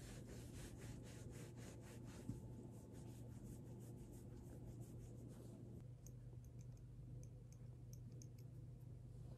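Near silence with faint rubbing: a hand stroking a cat's fur, a rapid soft rasping for the first couple of seconds, then a few light ticks.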